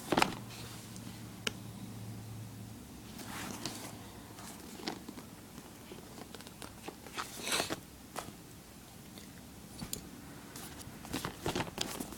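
Cardboard packaging with a slide-out tray being handled and worked open by hand: scattered clicks, scrapes and light rustles, busiest near the end.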